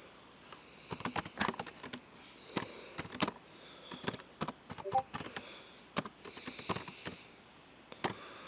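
Irregular sharp clicks and crackles, a few a second in uneven clusters, over a faint steady hiss.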